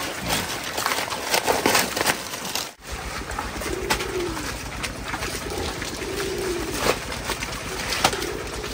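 Crunching and clicking for the first few seconds. After a brief drop, a low, wavering call repeats about every two seconds.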